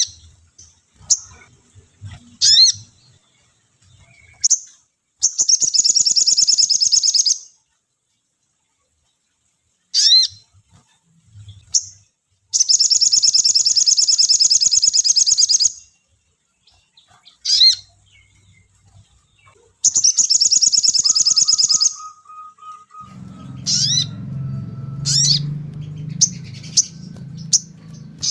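Sogon bird calling: short, sharp rising chirps alternate with rapid high trills, three of them each lasting two to three seconds. In the last few seconds a low rumbling noise sits under the calls.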